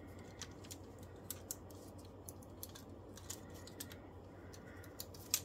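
Light, irregular clicks and taps of hard plastic parts being handled: a robot action figure and its swappable hands. One sharper click comes near the end.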